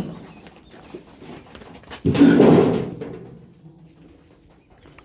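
A sheep bleating once, a loud raspy call that starts suddenly about two seconds in and fades over about a second.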